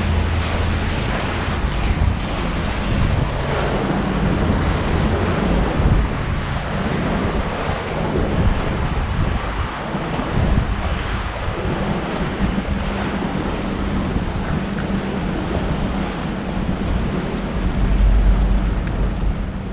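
Wind buffeting the microphone over waves washing on the shore, as a steady rushing noise with low rumbling gusts, the strongest near the end.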